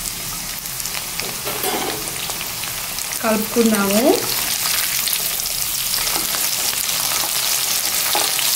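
Chicken pieces and green chillies deep-frying in hot oil in an iron kadai: a steady sizzle and crackle, with a steel ladle stirring them near the end. A short pitched sound dips and rises about three seconds in.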